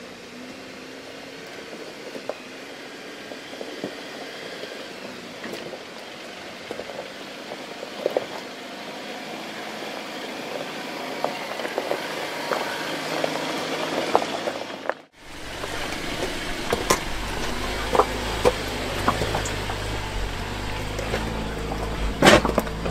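Jeep Wrangler Rubicon crawling slowly over rocks: a steady low engine note under scattered crunching and clacking of stones beneath the tyres, growing louder as it nears. The sound cuts out briefly about two-thirds through and returns as a deeper rumble, with a loud knock near the end.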